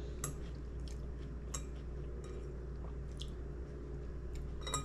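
Soft, scattered wet mouth clicks of someone chewing, over a steady low hum.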